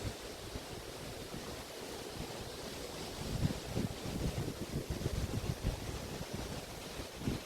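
Waves of the Río de la Plata estuary washing onto a beach, a steady hiss of water, with wind buffeting the microphone in irregular low gusts.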